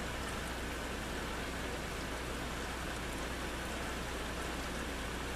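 Steady rain falling during a thunderstorm: an even hiss with no thunder, over a steady low hum.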